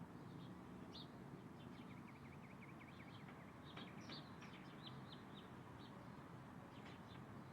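Faint birdsong: small birds chirping, with a quick run of short, falling notes about two seconds in and scattered higher chirps after it, over a steady low background rumble.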